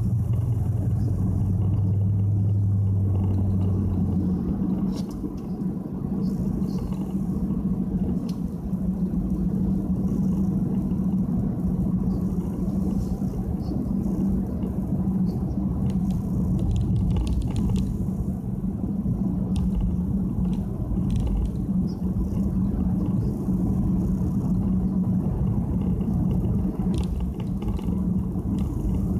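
Nissan Fuga 350GT's 3.5-litre V6 with a one-off quad-pipe exhaust, heard from inside the cabin while driving: a steady engine and road drone. A lower hum drops away about four seconds in.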